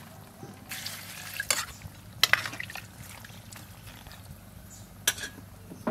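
Metal ladle stirring a pot of soup with green vegetable stems in an aluminium pot. The ladle scrapes through the greens and gives a few sharp clinks against the pot.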